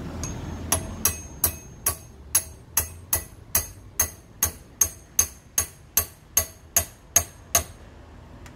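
Hammer tapping on a steel rod laid across a car air-conditioning compressor's clutch pulley, driving the pulley back onto the compressor. It is a steady run of about eighteen metal-on-metal taps, roughly two and a half a second, that stops shortly before the end.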